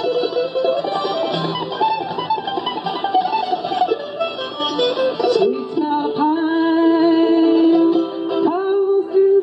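Live acoustic folk music: a mandolin picks a quick run of notes over acoustic guitar. About halfway through, a woman's voice comes in with long held notes that she slides into.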